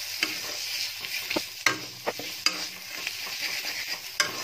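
A spatula stirring and scraping an onion-tomato masala as it fries in ghee and oil, over a steady sizzle, with a few sharp clicks where the spatula strikes the pan.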